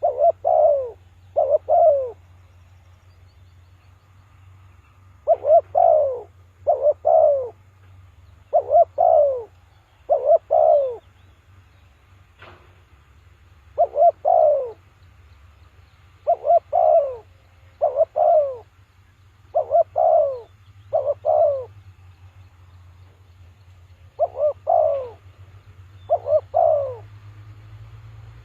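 Spotted dove cooing: short falling coos, mostly in pairs, repeated every second or two with a few longer pauses. A single sharp click sounds about twelve seconds in.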